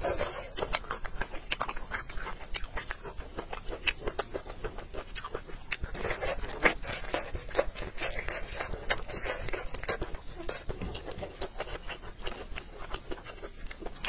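Close-up eating sounds: a person chewing and biting food, with many quick irregular clicks and wet mouth noises.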